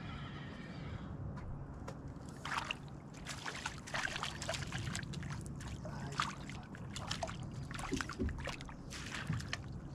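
Water splashing and lapping irregularly at the side of a small boat, with splashes from about two seconds in, over a steady low rumble.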